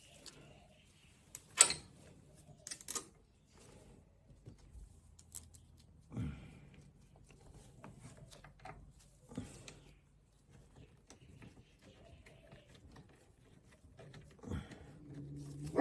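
Scattered light clicks and knocks of hand tools and metal brake parts being handled during workshop assembly, the loudest a sharp click about a second and a half in.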